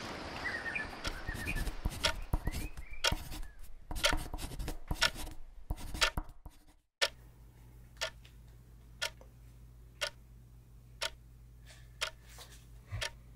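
A clock ticking about once a second over a low steady hum, after a few seconds of irregular clicks and knocks.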